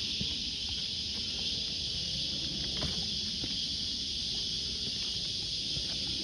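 Steady high-pitched drone of an insect chorus, with a low rumble underneath and a few faint scattered ticks like footsteps on the trail.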